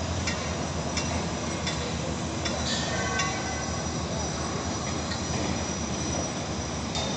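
Heavy construction site noise: a steady low rumble with sharp knocks repeating about every 0.7 seconds through the first few seconds, and a brief high-pitched squeal about three seconds in.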